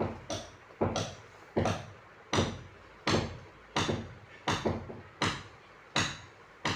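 Wooden spatula knocking against the bottom of a kadai about once every three-quarters of a second as fried potatoes and peas are pressed and crushed in it.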